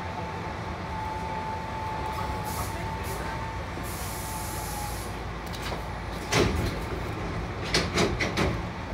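Hankyu 5100-series electric train coming to a stop at a station: a steady running whine fades out about five seconds in, then short bursts of compressed-air hiss come twice, around six and eight seconds in, from the air brakes and door gear.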